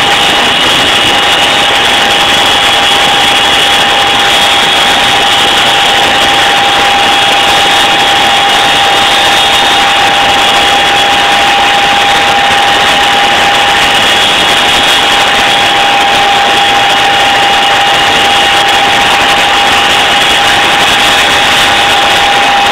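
Cabin noise of a tandem-rotor Chinook helicopter in steady cruise: a loud, unchanging turbine and rotor drone with a steady high whine over it.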